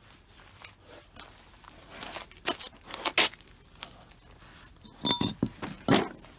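A handful of sharp clinks and knocks from tools or parts being handled, one of them with a brief metallic ring about five seconds in.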